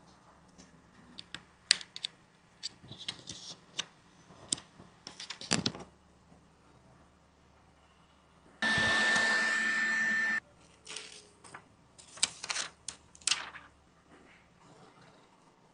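Light clicks and taps of small repair tools on an iPhone during a screen and back glass replacement, coming irregularly. A little over halfway through, a small electric tool or blower runs for about two seconds: a steady hiss with a high whine, the loudest thing heard.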